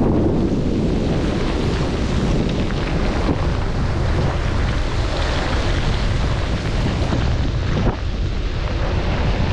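Wind buffeting the microphone of a camera on a moving bicycle, over a steady hiss of rain and wet road.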